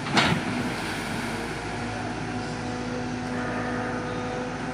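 JCB 3DX backhoe loader's diesel engine running steadily, with wind noise on the microphone. A sharp click right at the start.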